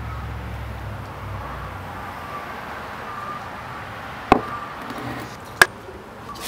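Beer poured from an aluminium can into a pint glass, then the full glass set down on a wooden table with a sharp knock, and the can set down beside it with a second, louder knock about a second later.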